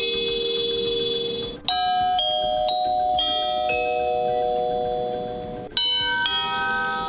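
Honeywell RCW3505N wired door chime playing its electronic chime tunes one after another. A tune rings out at the start. A new tune of about five notes, half a second apart, begins just under two seconds in and slowly decays. Another tune starts near the end.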